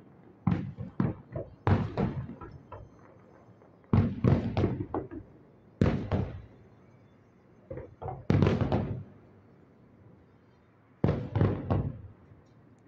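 Fireworks bursting: about six clusters of quick, sharp bangs, each cluster one to three seconds after the last, every bang trailing off briefly.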